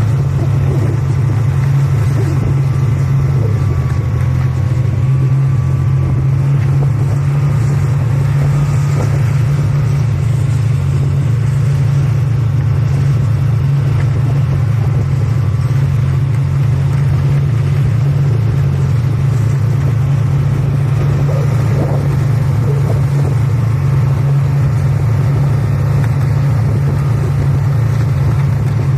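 Snowmobile engine running steadily under way, a constant low drone that holds an even pitch and level.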